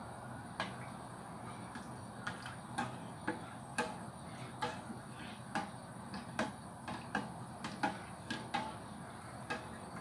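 A ladle knocking and scraping against the sides of a stainless steel saucepan as a thin liquid is stirred: irregular sharp clicks, about two a second, starting about half a second in.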